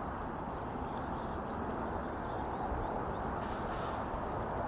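Insects chirring steadily outdoors, a continuous high thin sound, over a low, even rush of background noise.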